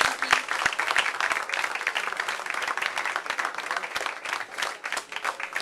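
A small audience clapping, a dense patter of hand claps that thins out near the end.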